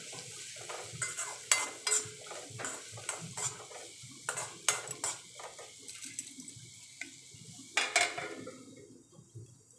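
Metal spoon stirring bitter gourd slices in a metal kadai, clinking and scraping against the pan at an irregular pace. A steel lid is set on the pan just before eight seconds in, with a loud clank.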